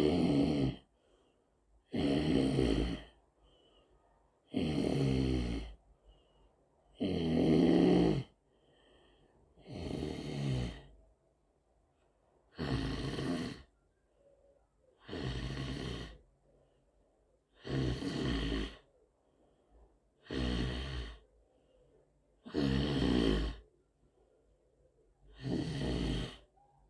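A sleeping person snoring in a steady rhythm: one snore about every two and a half seconds, each lasting about a second, with near quiet between.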